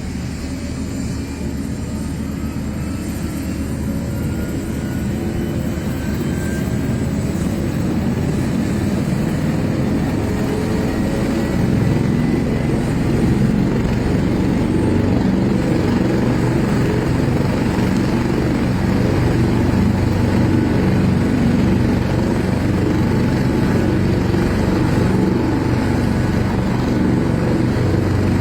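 Helicopter running, growing louder over the first dozen seconds and then holding steady, with a faint rising whine early on.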